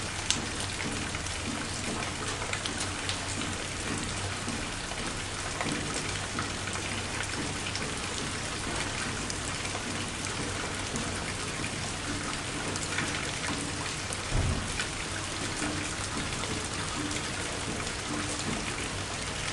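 Steady rain falling, with many individual drops ticking close by. There is a brief low thump about fourteen seconds in.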